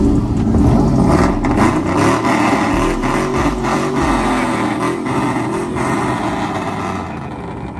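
A motor vehicle running loudly, its sound slowly fading toward the end.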